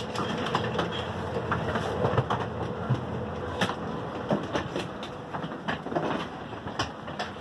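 Station platform noise beside a train waiting to depart: a steady hum with a faint steady tone under it, and many scattered clicks and knocks.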